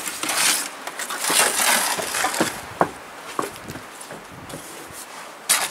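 Bricklaying work: a run of gritty scrapes of bricks and mortar with a few short clinks, and a louder scrape near the end.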